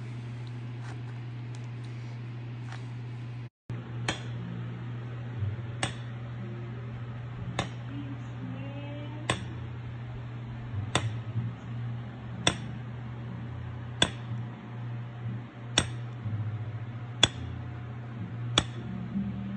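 A shoemaker's hammer tapping a hand tool against a shoe sole: sharp metallic taps about every second and a half, starting about four seconds in, over a steady low hum.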